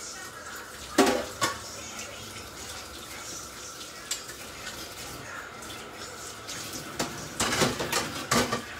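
Dishes and cutlery clattering as they are handled: a couple of sharp clinks about a second in, one more a few seconds later, and a quick run of clinks and knocks near the end.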